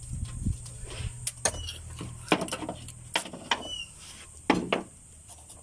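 A series of irregular knocks and clatters, about six, over a low steady hum that fades out partway through.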